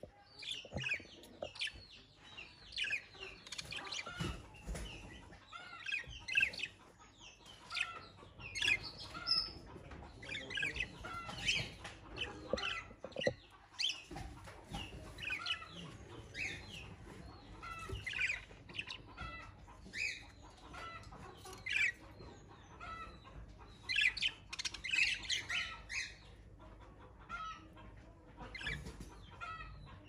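Cockatiel chirping: many short, high calls in quick runs, easing off near the end.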